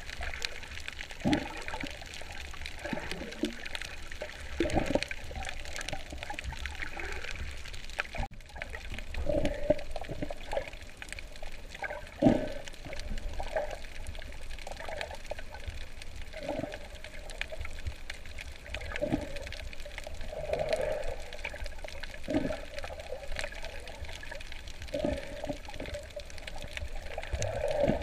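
Underwater water noise recorded while snorkeling: a muffled steady rush of water with short gurgling, bubbling pulses every second or two.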